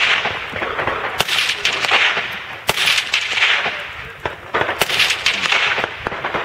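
Four loud rifle shots, spaced one to two seconds apart, each followed by a long echo off the rock quarry walls, with fainter sharp cracks between them.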